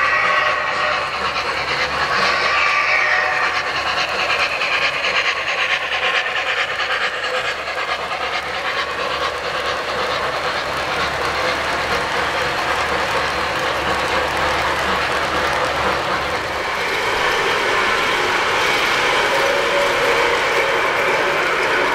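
Three-rail O-scale model trains rolling past on the track: a steady rumble and clatter of metal wheels on the rails. About sixteen seconds in the sound grows louder as a model steam locomotive comes by.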